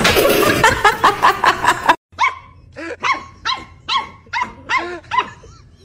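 A loud, dense run of rapid repeated sounds for about the first two seconds, cut off suddenly. Then a puppy barks in a quick series of short, high yips, about two or three a second.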